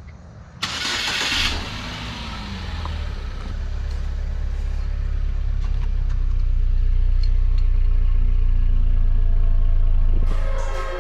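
Buick Regal Turbo's engine starting: a sudden burst as it fires, a brief rev that falls away, then a steady low running rumble that grows louder and fades near the end.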